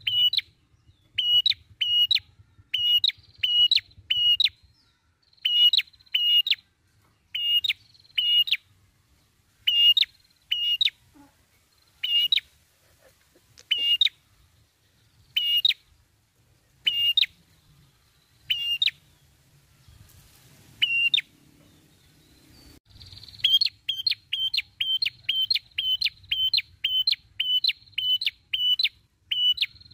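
Red-headed prenjak, a tailorbird, calling: sharp high notes in groups of two or three, repeated every second or so. After a pause of a few seconds past the middle, it breaks into a faster run of notes, about three a second.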